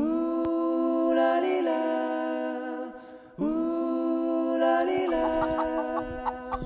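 Unaccompanied voices singing long held notes together in two phrases of about three seconds each. Each phrase opens with a short upward slide, with a brief pause for breath between them, and the second phrase breaks into short notes near the end.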